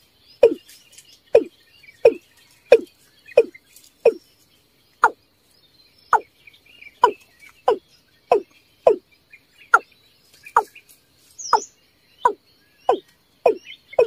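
Watercock calls: a steady series of deep, hollow notes, about one and a half a second, each dropping in pitch.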